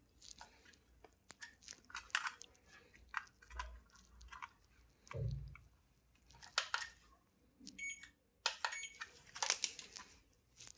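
Irregular clicks, scrapes and crunches of small plastic parts being handled and pried, as when a 12 W LED bulb is opened for repair, with a dull thump about five seconds in.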